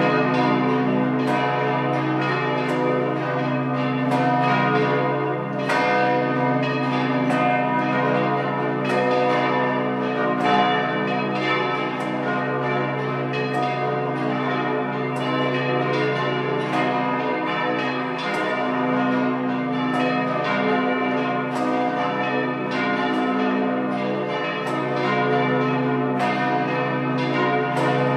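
Church bells ringing continuously, struck about two or three times a second over a low, held hum.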